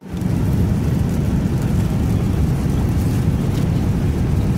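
Steady low rush of cabin noise inside a Boeing 787-9 airliner in flight, the air and engine noise heard from an economy seat. It drops out for a split second right at the start, then carries on unchanged.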